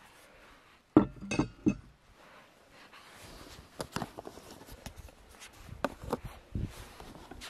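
A metal water bottle set down on a wooden table: a loud clunk with a brief metallic ring and a couple of quick knocks after it. Scattered lighter knocks and clicks follow.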